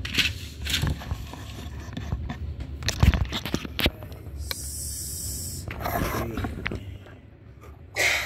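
Handling noises from working on an opened AV receiver: scattered clicks, knocks and scraping, with a heavier knock about three seconds in and a short hiss a little past halfway.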